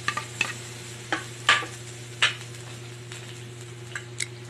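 Garlic sizzling in tuna oil in a pan while being stirred, with several sharp scrapes and clinks of a utensil against the pan in the first two and a half seconds over a steady low hum.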